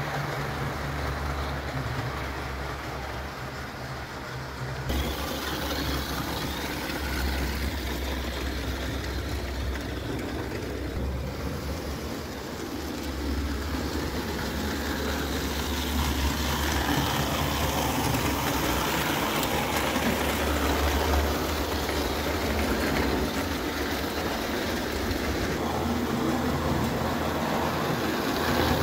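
JEP O-gauge tinplate electric model locomotive running on three-rail track: a steady electric motor hum with the rolling noise of its wheels on the tin rails, getting somewhat louder in the second half.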